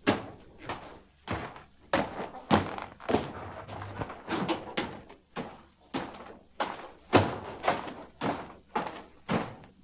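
Footsteps climbing a stone staircase: a steady tread of sharp, heavy steps, about two a second.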